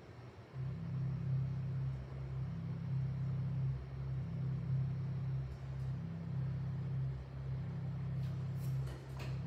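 Low, steady rumbling drone with slight swells, a recorded soundtrack played from a laptop over the room's loudspeakers, starting abruptly about half a second in. Faint paper rustling near the end.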